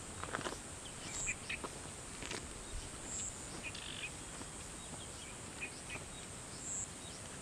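Outdoor ambience of birds chirping, a short high chirp repeating a few times over a steady high hiss. There are faint footsteps on a dirt trail near the start.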